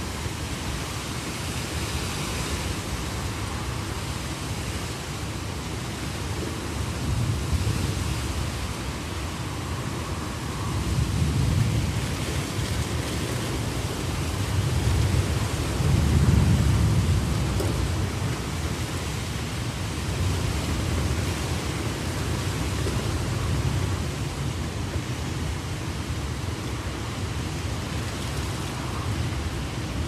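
Heavy, steady rain with low rumbles of thunder swelling in several times, the loudest about halfway through.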